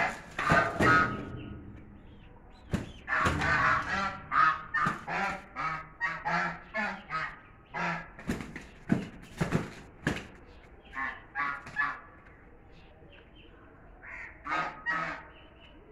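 Chinese geese honking in a long run of short, repeated calls while two of them fight, with a brief lull a little before the end and then two more honks.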